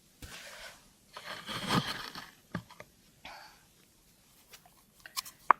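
Rustling and scraping as a hand digs through a container of fishing worms, in a few short spells, followed by a few sharp clicks near the end.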